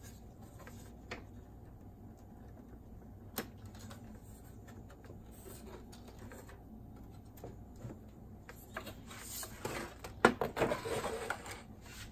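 Plastic boombox front case being worked loose and lifted off by hand: an odd click, then a flurry of plastic clicks, knocks and rustling near the end as the front comes free.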